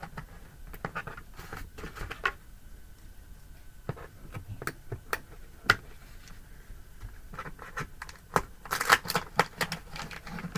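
Doll packaging being handled: scattered clicks and scratches of cardboard and plastic, with a denser burst of rustling about nine seconds in.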